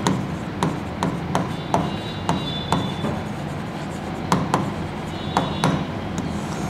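Marker writing on a whiteboard: the tip taps the board sharply at each stroke, about two or three taps a second, with a few short squeaks as it drags across the surface.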